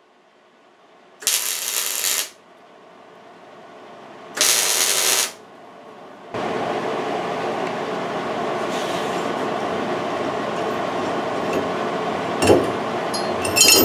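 Two short arc-welding tacks with a stick-welder electrode, each about a second long, the first about a second in and the second a few seconds later, joining a steel bar to its plate. After them a steady rushing noise sets in, with a few sharp metal clinks near the end.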